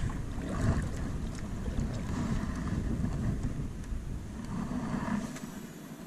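Wind buffeting the microphone in a stout gusty wind, a fluctuating low rumble that eases about five seconds in.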